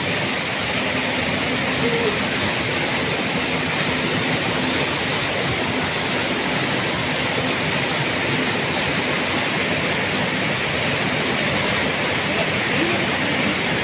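Rushing floodwater of a swollen mountain river pouring over rocks: a steady, loud rush of water.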